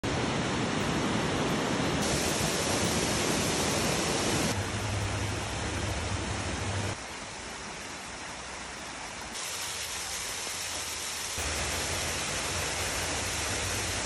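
Small waterfalls rushing and splashing down into a lake: a steady rush of water that shifts abruptly in loudness and tone every two seconds or so as one waterfall gives way to another.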